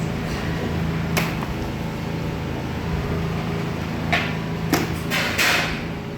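Kitchen handling sounds over a steady low hum: a sharp knock about a second in, then a brief rushing noise and two more knocks and clatters near the end.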